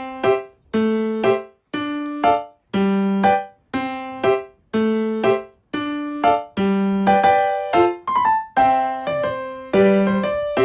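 Background music: a piano-style keyboard playing short chords about once a second, each note fading quickly, in a repeating pattern.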